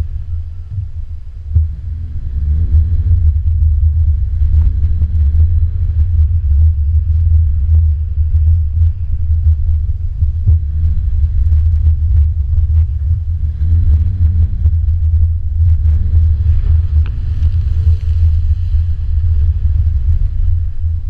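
Subaru Crosstrek's flat-four engine revving up and easing off in four swells while driving through mud, under a heavy, steady low rumble, with scattered clicks and knocks.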